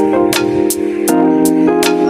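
Background music: sustained chords over a steady beat of sharp percussive hits, about three a second, with a chord change about a second in.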